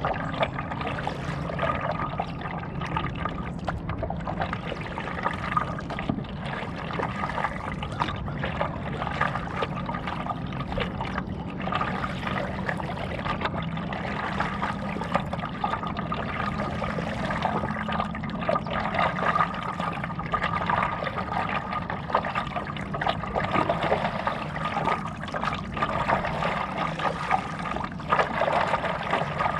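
Water trickling and splashing close by as a stand-up paddleboard is paddled across a lake, with small irregular splashes from the paddle and water against the board.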